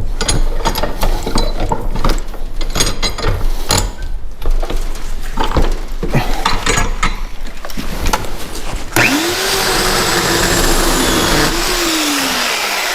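Knocks and clatter of wood and the saw being handled, then about nine seconds in a 9-amp electric chainsaw's motor spins up with a whine. The motor and the chain run steadily for about three seconds, then wind down as the trigger is released.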